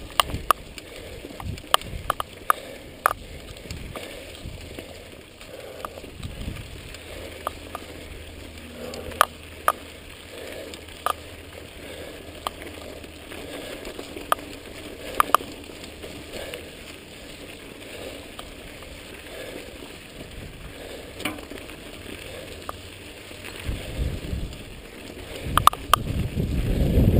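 Mountain bike rolling over a dirt and sand trail: tyres running on the dirt with many sharp clicks and rattles from the bike over bumps. A low rumble grows louder near the end.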